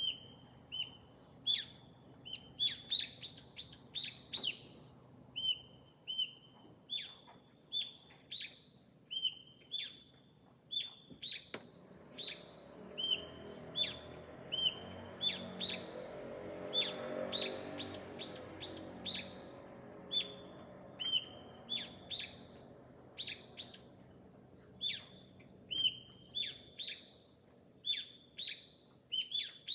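Garden birds chirping: short, sharp calls repeated about one to two times a second. A low rumble swells and fades around the middle.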